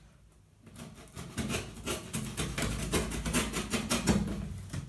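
A long flat-pack cardboard box being opened and handled: a rapid run of cardboard scraping, rustling and knocks, starting about a second in.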